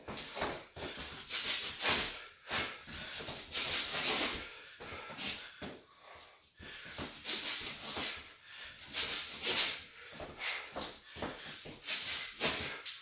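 A boxer's short, sharp exhalations, one with each punch thrown while shadowboxing hooks with ducks, coming in irregular quick clusters with brief pauses between.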